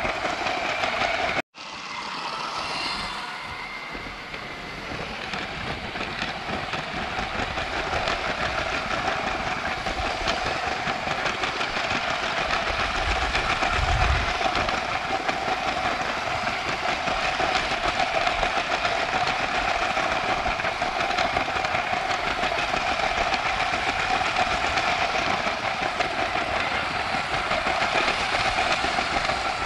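Lego 9V train running along its track: a steady motor whine over a continuous rattle of wheels on the rails. The sound cuts out for an instant about a second and a half in, then carries on.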